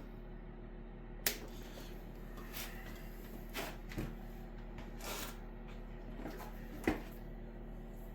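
Cutters snipping the ends off tied wiring bundles: a handful of short, sharp snips spaced a second or so apart, the loudest about a second in and near seven seconds, over a low steady hum.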